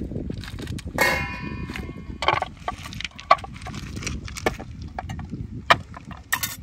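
A stainless steel pot clanks and rings briefly against the river stones about a second in, among pebbles crunching underfoot. Several sharp knocks and clatters follow as the pot and a cutting board are handled on the rocks.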